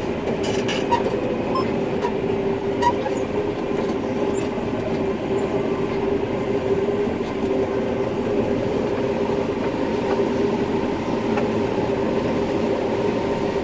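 Combine harvester running steadily while harvesting corn, heard from the cab: an even mechanical drone with a constant hum. A few light ticks in the first three seconds.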